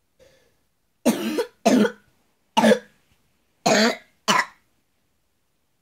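A man coughing five times, the first two and the last two close together.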